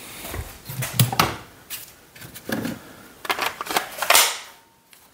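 Irregular clicks and knocks of hand tools on metal as bolts are worked loose, with a longer, louder noise about four seconds in.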